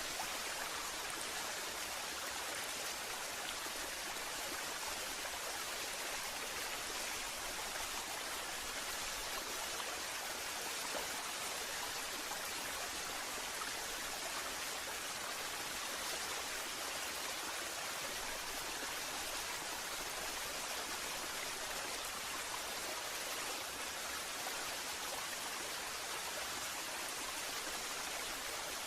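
Waterfall: water falling and splashing in a steady, even hiss with no change.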